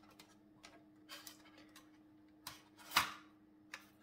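Plastic parts of a Hornby model locomotive clicking and tapping as the body is handled and pressed onto its chassis: about half a dozen light, separate clicks, the loudest about three seconds in.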